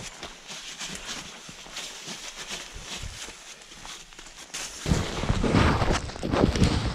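Faint crackling and rustling, then, about five seconds in, loud irregular rumbling of wind buffeting the microphone in a snowstorm.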